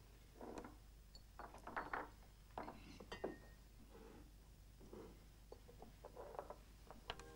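Faint, scattered small clinks and knocks over quiet room tone.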